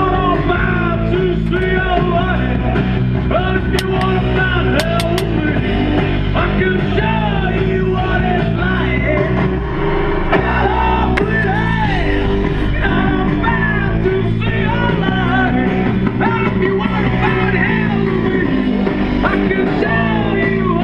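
Rock music with electric guitar and a singing voice, playing on a car radio inside the cabin.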